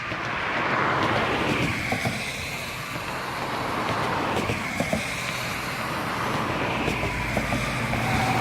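Cars driving over a concrete bridge deck with a ridged surface: a steady tyre hiss with a high whine that swells and fades as each car passes. A heavier engine rumble builds near the end as another vehicle approaches.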